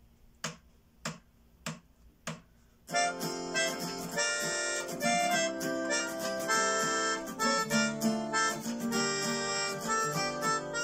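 Four evenly spaced count-in clicks, then about three seconds in an acoustic guitar strumming chords while a pianica (keyboard melodica) plays the melody.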